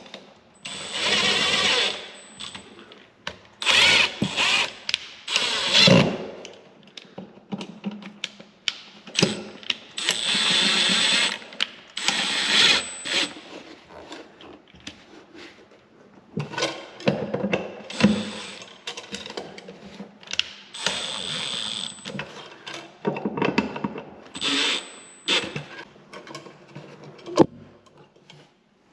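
Power drill running in short bursts of one to two seconds, about eight times, with pauses between.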